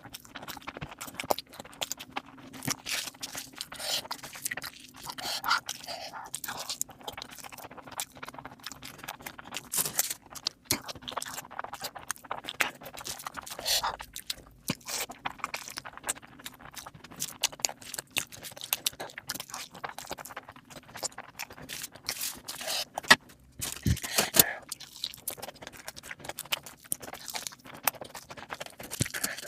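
Close-miked eating sounds: irregular chewing, crunching and biting, with scraping, over a faint steady hum that fades about halfway through.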